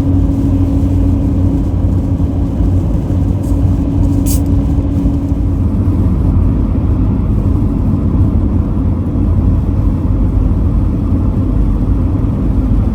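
Steady road and engine noise inside a moving camper van: a low rumble of tyres and drivetrain, with a steady hum that fades out about halfway through.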